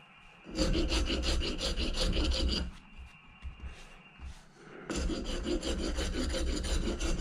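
Hand wood rasp filed across the sawn-off end of a wooden axe handle, set flush in the axe head's eye, to clean it up. It goes in two runs of quick scraping strokes, each about two seconds long, with a short pause between.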